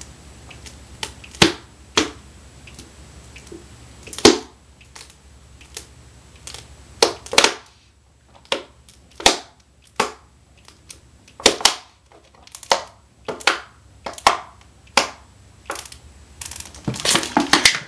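A person chugging a very cold drink: a long, irregular series of gulps and swallowing clicks.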